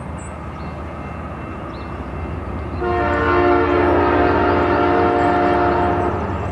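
Diesel freight locomotive's air horn sounding one long chord-like blast of about three seconds, starting about three seconds in, over the low rumble of the approaching train.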